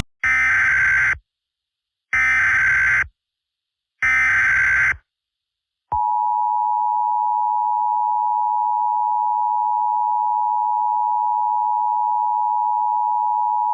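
Emergency Alert System tones: three one-second bursts of SAME header data, a second apart, then about six seconds in the two-tone EAS attention signal (853 and 960 Hz together) sounds steadily for about eight seconds.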